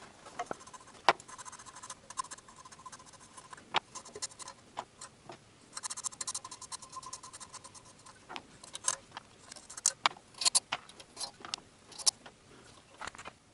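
Irregular light metallic clicks, taps and scrapes as nuts are unscrewed from the manifold studs on an engine's cylinder head.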